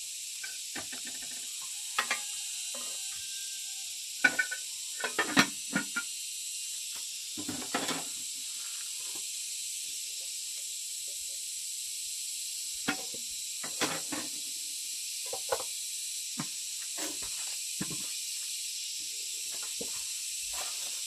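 A steady high hiss with scattered short knocks and clicks at irregular intervals, most frequent about four to six seconds in.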